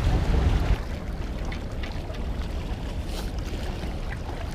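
Low, steady rumble of wind buffeting the microphone, a little stronger in the first second, with small waves lapping against the rocks of the jetty.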